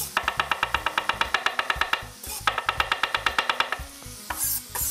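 Chef's knife chopping garlic on a cutting board in quick, even strokes, about eight a second, in two runs with a short pause between. Near the end come a few scrapes of the blade across the board.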